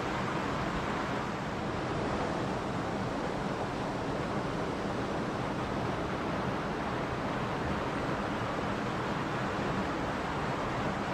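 River water rushing steadily over rocks and small cascades: a continuous, even roar of flowing water.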